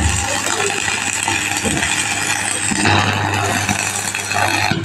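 Stick-welding arc from a heavy-duty 600-amp transformer welding set, crackling and hissing steadily over the set's low transformer hum. The arc breaks off suddenly near the end.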